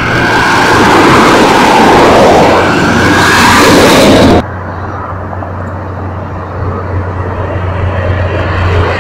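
Road traffic passing close by on a highway: tyre and engine noise from cars and a truck, swelling as they go by. It cuts off suddenly about halfway through, leaving a quieter steady low rumble.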